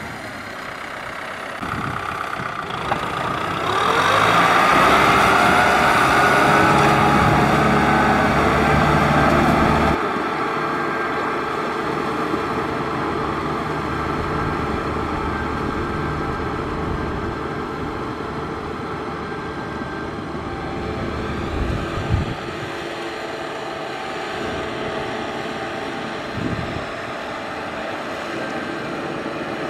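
Kubota farm tractor's diesel engine working through deep mud. It revs up and runs loudest from about four seconds in, then drops abruptly at about ten seconds to a lower, steady running note.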